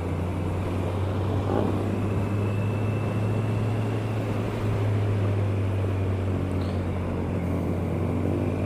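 Kawasaki ER-6n's parallel-twin engine running at a steady speed, a constant low hum, under wind rush on a helmet-mounted camera.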